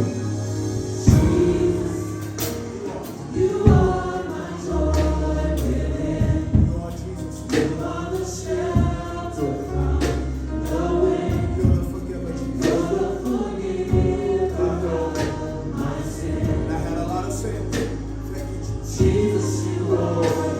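Gospel choir singing with band accompaniment: held low bass notes under the voices and regular drum hits.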